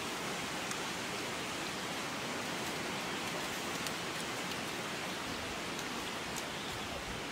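Stream water running over rocks: a steady rushing hiss with a few faint ticks.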